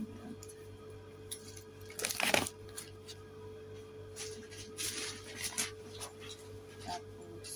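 Handling noises as a belt and shopping are put down and sorted: a short clinking clatter about two seconds in, then softer rustling and light knocks, over a steady low hum.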